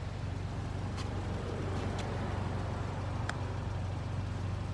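Toyota Celica GT-Four ST205's turbocharged 3S-GTE four-cylinder idling steadily through a Fujitsubo Super Ti exhaust, a low even hum. A few faint ticks sound over it.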